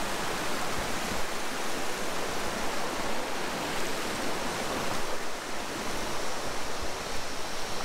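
Mountain stream rushing over boulders: a steady wash of white water.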